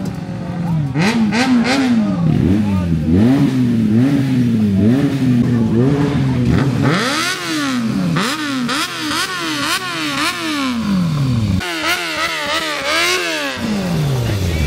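Motorcycle engine revved over and over, the throttle blipped in quick succession so the pitch keeps rising and falling, with wider revs in the second half.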